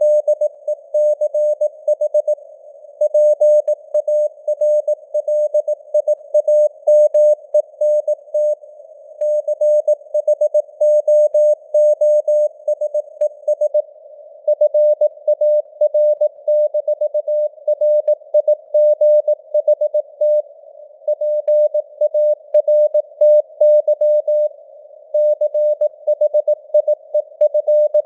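Morse code sent at 18 words per minute as a keyed tone of about 600 Hz, with a narrow band of simulated radio hiss around it and the signal strength fading up and down (QSB). Dots and dashes run in fast bursts, broken by a few short pauses between words.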